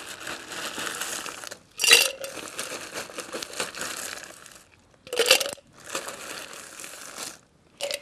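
Ice being scooped for a cocktail: a rough crunching, rattling scrape, broken twice by a sharp metal clink as ice drops into a stainless steel cocktail shaker.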